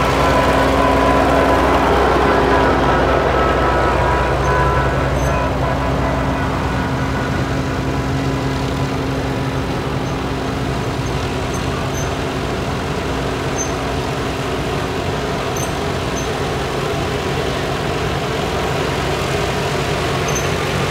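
Old farm tractor engines running at a low, steady speed as a parade of tractors drives past. One engine's hum is strong at first and fades after a few seconds, and the next tractors are heard coming closer toward the end.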